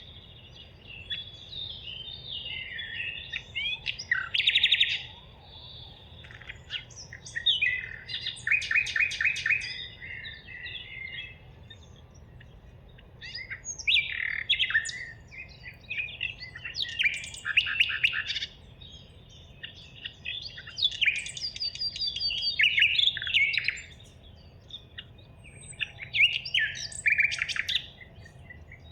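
Songbirds singing: repeated bursts of quick chirps and trills, each phrase a second or two long, with short pauses between.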